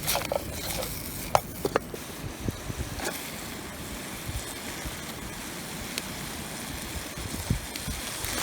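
Steady rush of a flowing river, with a few sharp clicks in the first two seconds.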